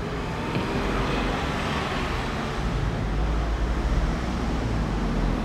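Steady low rumble of distant road traffic, with no siren tone.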